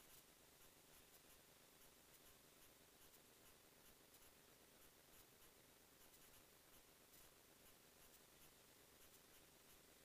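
Near silence: a faint steady hiss with faint, evenly spaced ticks.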